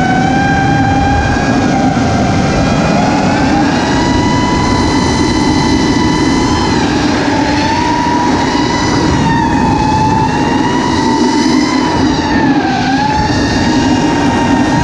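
FPV racing quadcopter's brushless motors and propellers on a 6S battery, giving a high whine that rises and dips with the throttle. Wind rushes over the onboard camera's microphone underneath.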